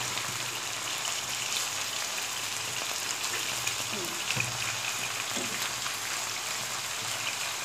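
Chicken seekh kebabs shallow-frying in hot oil in a non-stick pan, making a steady sizzle, with a few soft knocks from the spatula as they are turned over.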